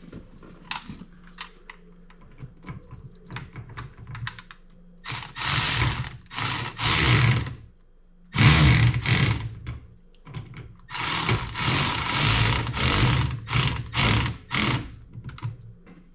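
Light clicks of a socket being fitted, then an electric ratchet running in several short bursts as it drives lock nuts down a mount's U-bolt.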